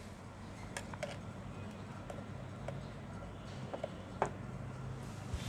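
A few light metal clicks and taps as a sewing machine's presser foot is fitted back on and fastened, over a low steady hum.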